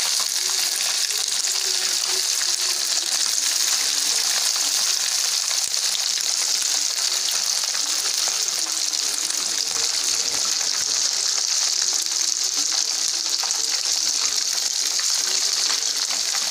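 Fish coated in rice flour, cornflour and chilli powder deep-frying in a kadai of hot oil: a steady, dense sizzle that runs on without a break.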